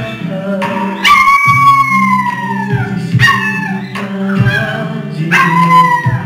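Small black-and-tan dog howling along with music from a stereo: three howls over the music, the first, about a second in, long and sliding slowly down in pitch, then two shorter ones.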